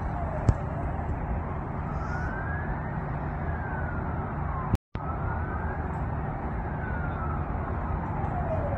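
Emergency vehicle siren wailing, its pitch rising and falling slowly every couple of seconds over a steady low rumble. A sharp click comes about half a second in, and the sound cuts out briefly about halfway through.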